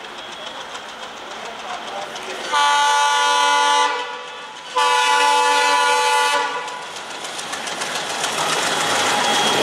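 Diesel locomotive's air horn sounding two long blasts, each about a second and a half, a chord of several steady tones. Under and after them, the train's rumble and wheel clatter grow steadily louder as it approaches.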